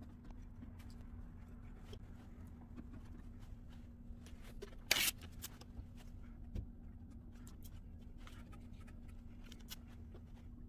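Hands working wet paper mache: faint rustles and small taps of paper and paste, with one brief louder rustle about five seconds in, over a steady low hum.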